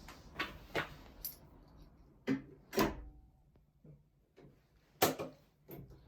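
A series of short knocks and clinks, about eight at uneven intervals, with the loudest near the middle and about five seconds in.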